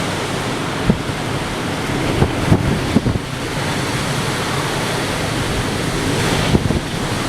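Typhoon wind blowing hard and steadily, with a few low thumps of gusts buffeting the microphone.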